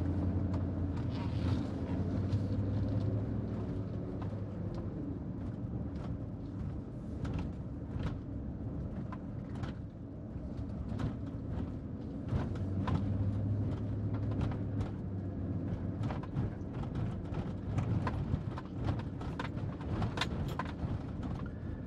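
Car engine running with tyre and road noise, heard from inside the cabin as the car turns around, with its pitch dipping briefly a few seconds in. Scattered small clicks and knocks sound over it.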